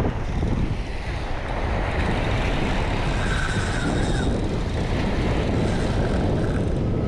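Wind buffeting the microphone over small waves breaking and washing on shoreline rocks, a steady rushing noise.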